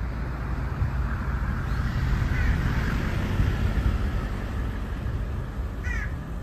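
Outdoor ambience: a steady low rumble with a bird calling twice, once about two and a half seconds in and once near the end.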